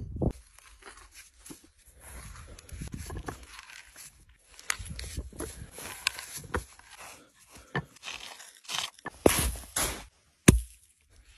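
Hand auger with a T-handle being turned into a wooden log, the bit crunching and creaking through the wood in irregular bursts with scattered clicks. A single sharp knock sounds near the end.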